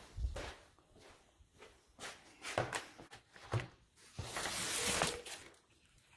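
Irregular light knocks and clicks of handling or movement, with a brief rustling hiss about four seconds in.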